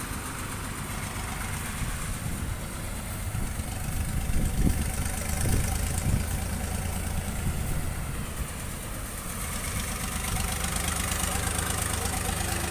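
Engine of a vintage road-construction machine idling, growing louder for a stretch about four to six seconds in.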